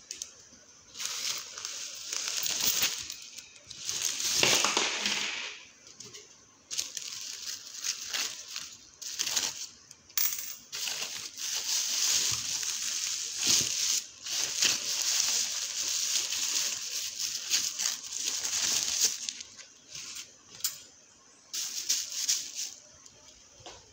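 Plastic and paper grocery bags rustling and crinkling in irregular stretches as they are handled, with a few short pauses.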